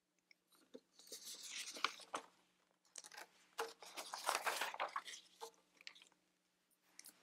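Sheets of paper rustling and crinkling as they are picked up and handled, in two spells of crackly handling noise with a short last rustle near the end.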